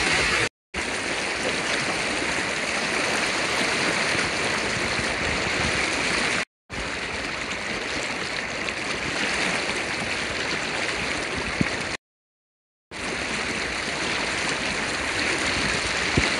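River water running steadily, a continuous rushing hiss. It drops out to dead silence three times at edit cuts: briefly about half a second in, again about six and a half seconds in, and for nearly a second around twelve seconds in.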